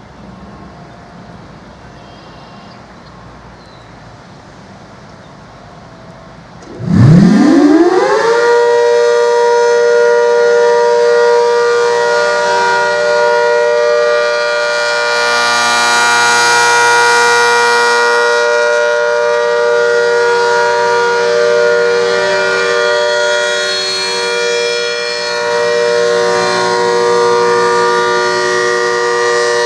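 ACA Hurricane MKII outdoor warning siren sounding the Alert signal. It winds up quickly about seven seconds in, rising in pitch, then holds a loud steady tone of several pitches sounding together.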